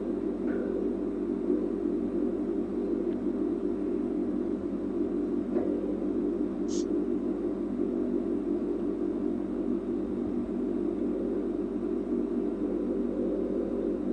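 Steady low background hum with no speech, and a faint short high tick twice.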